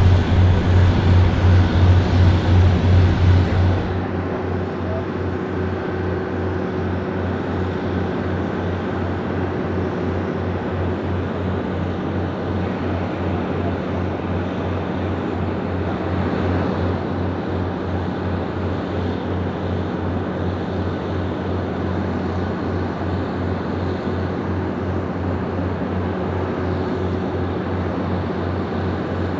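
Steady jet noise from the Airbus A300-600ST Beluga's twin turbofans as the freighter rolls on the runway and taxis, with an even low pulsing underneath. The sound is louder for the first few seconds, then drops at an abrupt cut about four seconds in.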